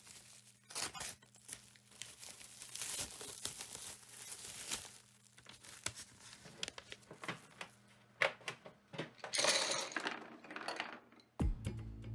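Irregular scratchy rustling of colored pencil strokes on paper, in many short strokes, with a louder dense patch about nine seconds in.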